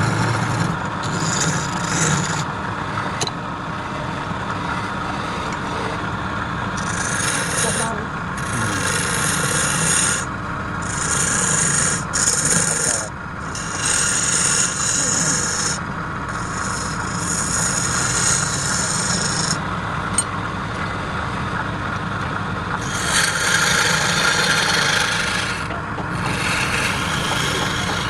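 Wood lathe running with a steady motor hum while the spinning wood is worked in repeated passes, each one to three seconds long with short breaks between.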